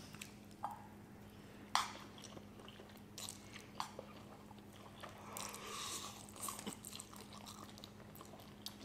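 People quietly slurping and chewing instant ramen noodles, with a few sharp clicks scattered through. A faint steady hum runs underneath.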